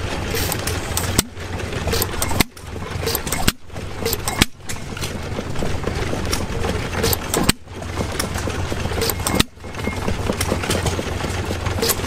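Small antique gas engine running, with a few short drops in the sound at uneven intervals.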